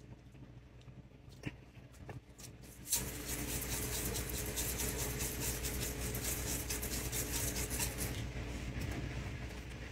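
A spice grinder being twisted over food: a dense, gritty crackle that starts about three seconds in, runs for about five seconds and fades away. Before it, a few faint clicks and taps.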